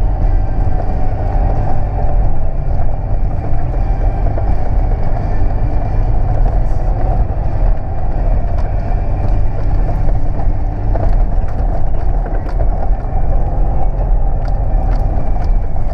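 Toyota LandCruiser driving along a rough dirt 4WD track, heard from inside the cabin: a steady rumble of engine and tyres, with scattered small clicks and knocks, more in the second half.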